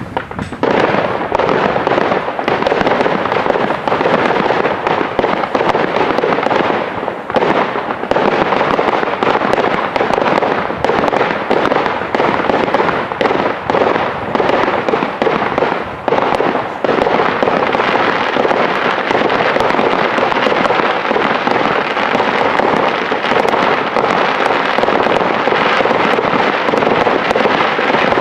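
Fireworks crackling: a dense, unbroken mass of rapid sharp pops from many crackling effects going off together.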